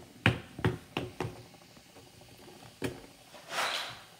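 Several short, sharp knocks as a hard lump is prodded in a bowl, about four in the first second and a half and one more near three seconds, then a brief scraping rustle near the end.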